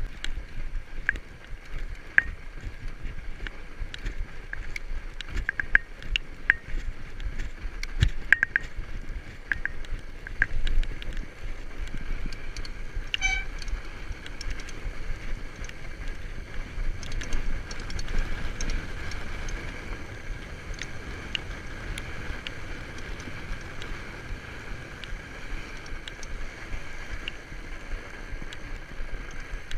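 Fat bike riding over a packed snow trail: wide tyres rolling and crunching on the snow with a steady low rumble, and frequent sharp clicks and rattles from the bike.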